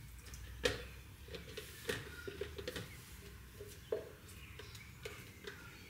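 Lye solution being poured from one plastic jug into another that holds soap oils, a silicone spatula knocking and scraping against the plastic. There are a handful of soft taps, the clearest about half a second in, near two seconds and near four seconds.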